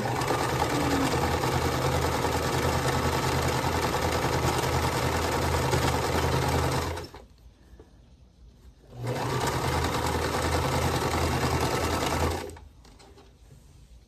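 Singer Start domestic sewing machine stitching steadily in two runs: about seven seconds, a pause of about two seconds, then about three and a half seconds more.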